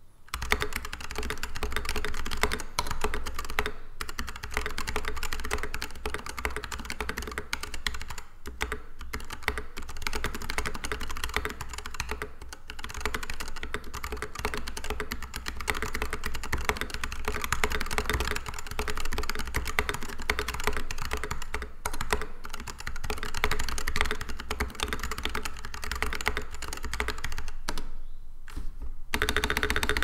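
Continuous fast typing on a custom 65% keyboard with retooled, unlubed Outemu Sky switches, a brushed brass plate in a stacked acrylic case and XDA PBT keycaps: a dense run of keystrokes with short pauses every few seconds and a longer pause near the end.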